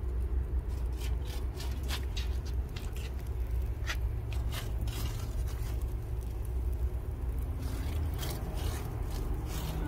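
A run of short, irregular scrapes as an oiled cloth is wiped back and forth over the hot metal grate of a charcoal grill, over a steady low rumble.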